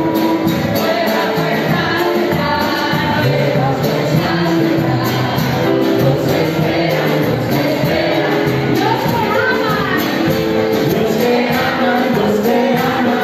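Loud, upbeat worship music with singing, and hands clapping along.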